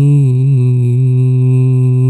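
A man reciting the Quran in melodic tajwid style, holding one long steady note on a drawn-out vowel.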